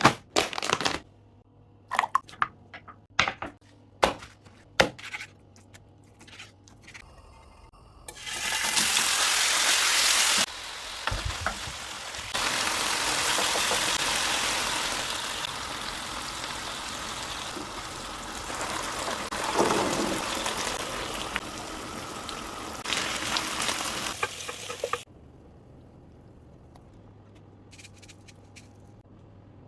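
Cooking sounds: a string of sharp knocks and clicks for the first several seconds, then a long stretch of food sizzling and being stirred in a frying pan that cuts off suddenly about 25 seconds in.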